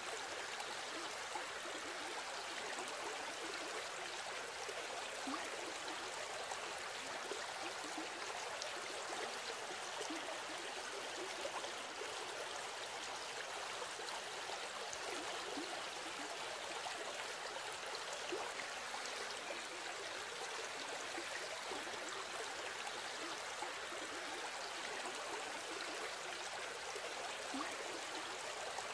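Steady running water like a babbling stream, an even rushing with small gurgles, constant throughout.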